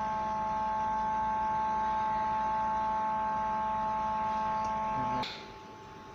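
Incubator humidity fogger running with a steady electric hum and buzz made of several steady tones. It cuts off suddenly about five seconds in.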